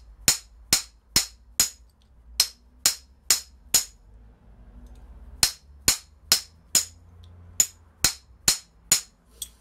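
Hammer tapping a socket former into the end of a copper pipe: sharp metallic taps about two a second, nine of them, a pause of about a second and a half, then nine more. Each blow drives the former deeper and expands the copper into a socket.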